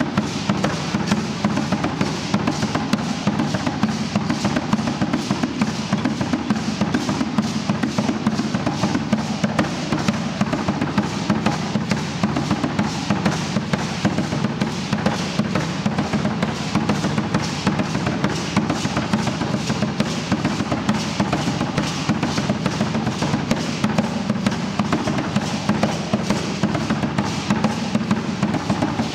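Aztec dance drumming: a drum beating a steady, fast, even rhythm, with the dancers' ankle rattles shaking along on the beat.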